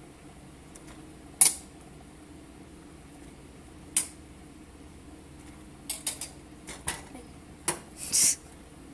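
Metal tongs clinking and scraping against a stainless steel pot as pieces of boiled corn on the cob are picked out. There are single sharp clinks about a second and a half in and about four seconds in, then a quick run of clinks between six and seven seconds, and a longer, louder clatter near the end.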